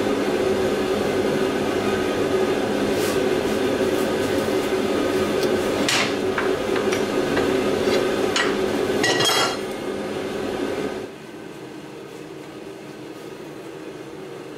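Steel leaf-spring leaves clinking and knocking against each other as they are handled and separated by hand: a few sharp metallic clicks, then a short cluster of knocks about nine seconds in. Under them runs a steady rushing noise that drops to a lower level about eleven seconds in.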